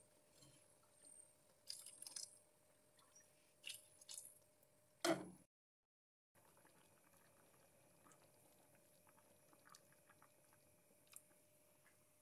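Risotto simmering in broth in a frying pan: faint bubbling and popping. A few louder clicks and knocks come in the first half, the loudest about five seconds in, followed by a brief total dropout in the sound.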